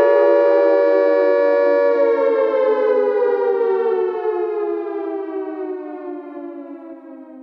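Warning siren holding a steady tone, then winding down from about two seconds in, its pitch falling as it fades away.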